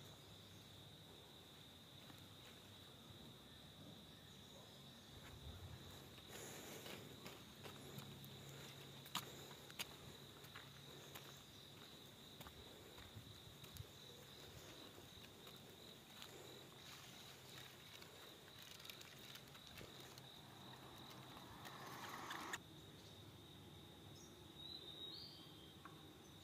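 Near silence with a faint, steady, high insect drone, as of crickets or cicadas in roadside forest. Two soft clicks come near the middle, and a brief swell of hiss cuts off suddenly a few seconds before the end.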